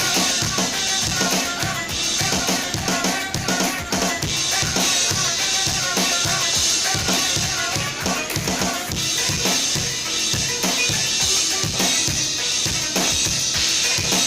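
Drum kit played over the backing track of a pop-dance song: a steady stream of bass-drum beats with snare and rimshot hits, cymbals hissing above.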